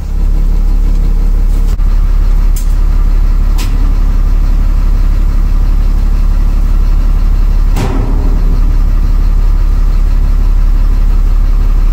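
School bus engine idling steadily, a loud low rumble heard from inside the bus, with a single brief knock about eight seconds in.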